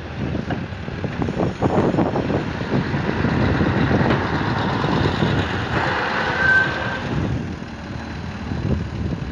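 Volvo wheel loader's diesel engine running under work as it raises and tips its high-dump bucket. A brief high beep sounds about six and a half seconds in.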